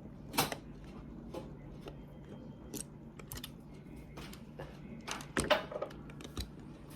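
Plastic parts of a talking toy train engine clicking and scraping as its wheel side covers are pried at by hand, in scattered short clicks and knocks; the loudest come about half a second in and around five and a half seconds in.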